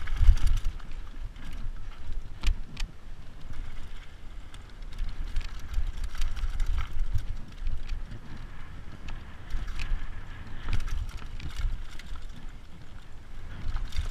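Mountain bike descending a fast dirt trail, with wind rumbling on the microphone, tyres on dirt, and the bike clattering over rough ground in several sharp knocks.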